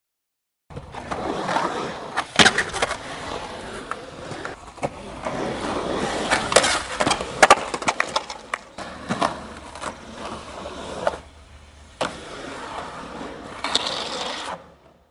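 Skateboard wheels rolling over concrete, broken by many sharp clacks as the board is popped and lands on tricks. The sound starts after a short silence, dips briefly about three-quarters of the way in, and fades out at the very end.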